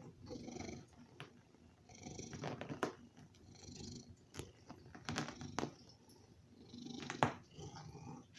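Domestic cat purring loudly, the purr swelling and easing with each breath about every second and a half. A few sharp clicks sound through it, the loudest near the end.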